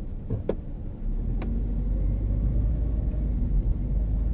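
Car engine and road rumble heard from inside the cabin; the rumble grows louder about a second in and then holds steady. Two short clicks come in the first second and a half.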